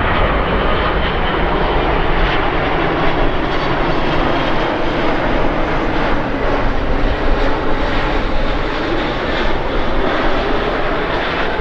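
Boeing 777 twin-engine jet airliner landing, its engines giving a loud, steady, rumbling jet noise that holds at much the same level throughout.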